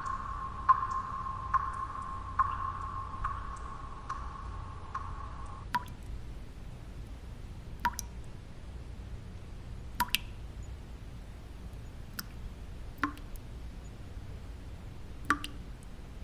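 Water drops falling one at a time, a sharp drip every second or two, over a low steady background noise. For the first six seconds a steady high hum with a tick about once a second runs underneath, then stops.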